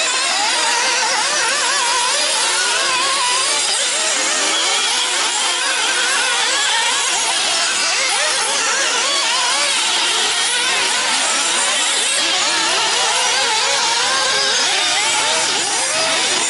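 Several nitro RC buggies' small two-stroke glow engines running at once, their high-pitched whines overlapping and constantly rising and falling as the cars accelerate and back off around the track.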